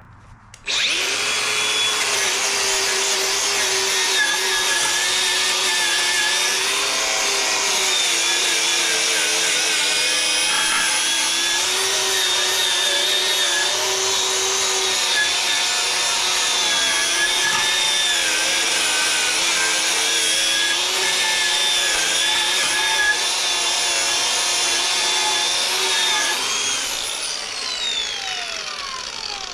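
Electric angle grinder running on a fresh weld bead, its pitch wavering as it is pressed into the metal, then winding down near the end.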